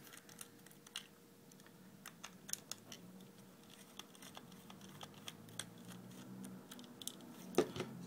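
Small cross-head screwdriver working screws out of a plastic keypad housing: faint, irregular clicks and scratches of the metal tip on the screw heads and plastic.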